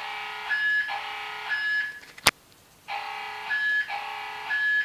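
Fire alarm voice-evacuation tone sounding from a ceiling speaker, in groups of three one-second tone pulses separated by a pause of about a second, the temporal-three evacuation pattern. A single sharp click sounds in the pause, about two seconds in.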